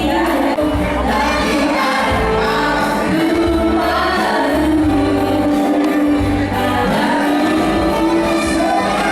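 A song with singing and a band, a female voice leading and other voices joining, over a steady bass.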